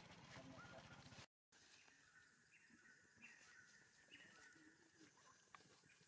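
Near silence: faint outdoor ambience with a few short, high chirps. A louder sound from before cuts off abruptly about a second in.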